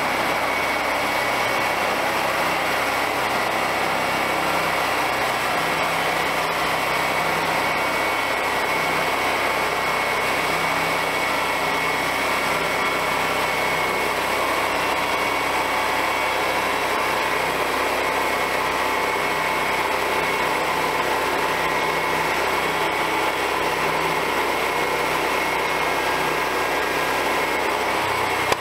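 Small gasoline engine of a homemade bandsaw mill running steadily at speed, with a steady high whine, as the mill's band blade cuts along a log.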